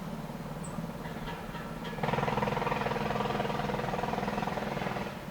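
Motor vehicle engine running with a steady low hum. About two seconds in, a louder engine noise comes in suddenly and holds, then cuts off near the end.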